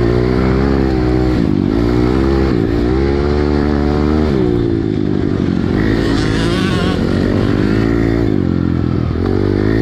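Pit bike engine heard from on the bike while racing, revving hard: its pitch climbs again and again through the gears with short dips between. It backs off sharply a little after four seconds in, then pulls up through the revs again.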